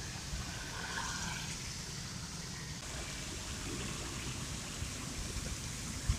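Traffic passing on a wet road: tyres hissing through water on the asphalt over the low running of car, motorbike and bus engines. A short low thump near the end.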